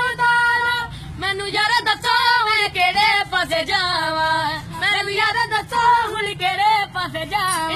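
A boy singing solo and unaccompanied in a high voice, with long held notes that waver in pitch.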